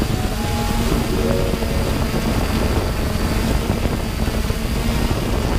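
3DR drone's electric motors and propellers running steadily in a low hover, heard through its onboard camera with a dense rumble of prop wash and a faint high whine.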